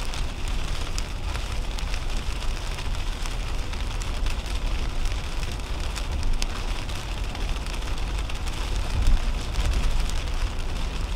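Rain ticking on a car's windshield over the steady low rumble of tyres on a wet highway, heard from inside the cabin of a 2010 Toyota Camry at highway speed.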